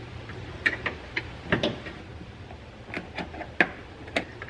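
Plastic push-pin retainers being pried up with a small flathead screwdriver and pulled out of a plastic trim cover: a string of short, sharp plastic clicks and snaps at irregular intervals.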